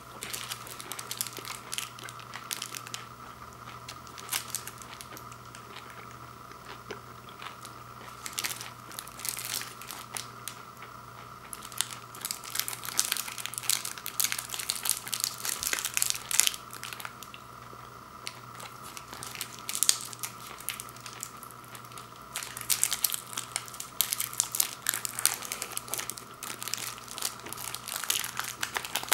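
Plastic wrapper of a fun-size Snickers bar crinkling as it is handled and torn open, in uneven spells of crackling that grow busier in the second half.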